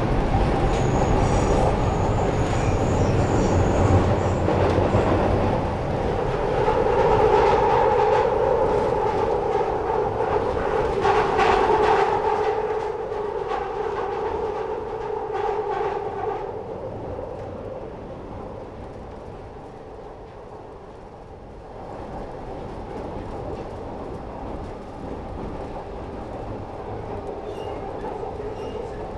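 Passenger train running past on the rails, with a steady two-pitched whine and a run of wheel clicks over rail joints about eleven seconds in. It is loudest over the first half, dies away after about sixteen seconds, and swells slightly again near twenty-two seconds.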